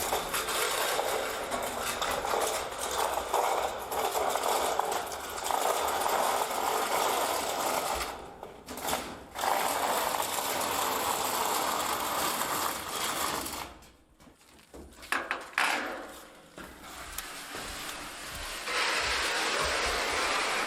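Rapid mechanical rattling that breaks off briefly about eight seconds in and again near the middle, giving way near the end to a smoother, steadier noise.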